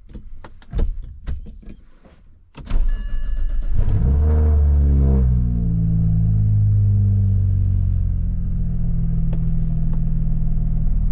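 A few sharp clicks, then the BMW N54 twin-turbo straight-six cranks and catches about three seconds in, flares up and settles within a couple of seconds into a steady idle. It is running on freshly fitted and coded injectors in cylinders 1 to 3 after a misfire on those cylinders, and the owner judges it to be running better, with no breakups at idle.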